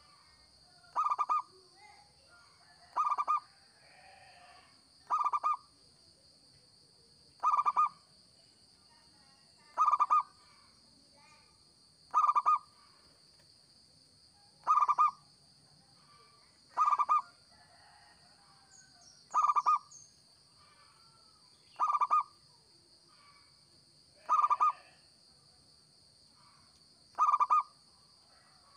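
Zebra dove (local Indonesian perkutut) singing its short cooing phrase over and over, about a dozen times, one phrase every two to two and a half seconds.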